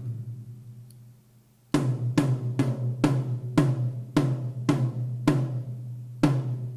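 The same sampled electronic drum sound is struck repeatedly, about two to three hits a second, each ringing on with a low drum tone. The hits begin after a gap of about a second and a half, during which the previous hit dies away.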